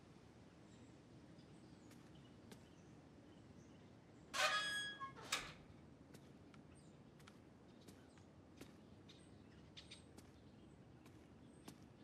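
Courtyard gate's door leaf pushed open: a short metallic hinge squeal about four seconds in, then a second brief scrape or clatter, over faint outdoor background with scattered small clicks.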